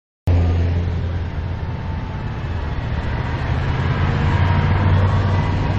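Steady low vehicle rumble that cuts in abruptly just after the start, with a faint steady whine above it.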